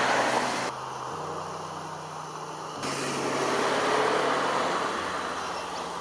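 Road traffic noise that swells and fades, with abrupt jumps in level, over low sustained notes that step to a new pitch every second or two.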